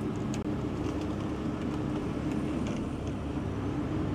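Heavy tow truck's diesel engine running steadily, powering the hydraulics as the winch lowers a suspended car, with a few faint clicks.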